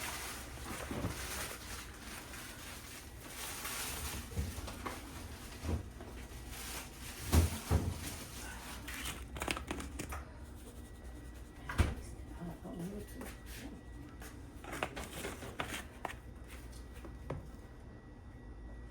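Kitchen handling sounds from food prep: rustling and scattered light knocks, with two louder thumps about seven and a half and twelve seconds in.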